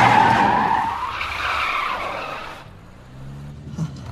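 Car tyres squealing in a skid, loud at first and cutting off about two and a half seconds in, followed by a quieter engine hum.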